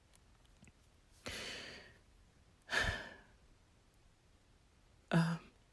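A woman breathing between her words: a long breath about a second in, then a heavy sigh out, and a brief voiced sound near the end.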